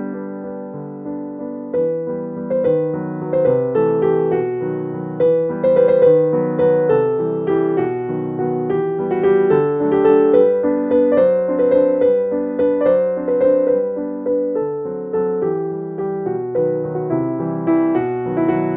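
Background music: a piano melody.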